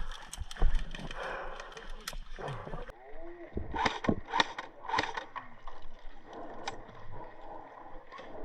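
Outdoor airsoft game sounds: scattered sharp clicks and knocks, with faint distant voices.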